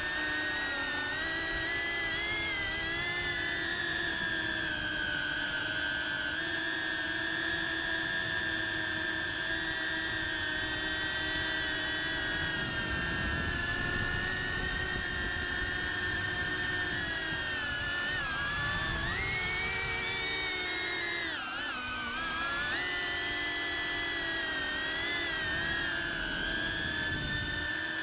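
Cinewhoop FPV drone's brushless motors and ducted propellers whining steadily in flight. The pitch climbs, dips sharply and recovers about two-thirds of the way through as the throttle is changed.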